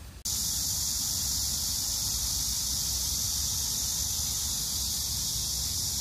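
A steady, high-pitched insect chorus, starting abruptly about a quarter of a second in and holding level throughout, with a low rumble underneath.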